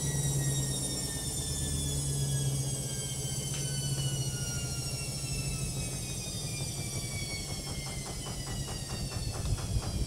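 LOGIK front-loading washing machine winding down from its spin, the motor's whine falling steadily in pitch over a low hum. In the last couple of seconds a rhythmic knocking of about four a second sets in as the drum slows.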